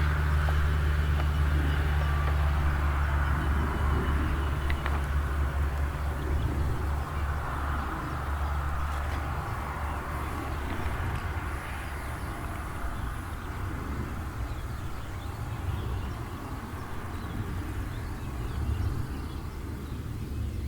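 Outdoor ambience with a steady low rumble that slowly fades.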